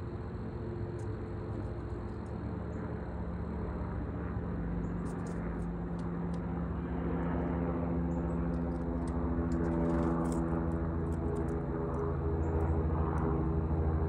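A steady engine drone with a low hum, growing gradually louder. Faint short high ticks sound over it in the middle.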